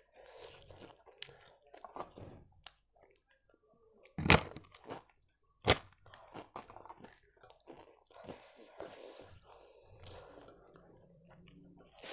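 A person eating with the mouth close to the microphone, chewing, with two loud sharp crunches of crisp papad about four and six seconds in.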